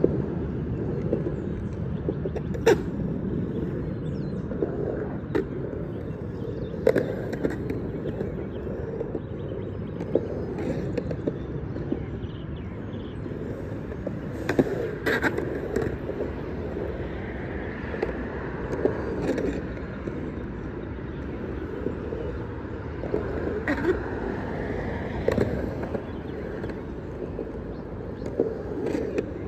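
Skateboard wheels rolling and carving on a concrete bowl with a steady rumble, broken several times by sharp clacks of the board.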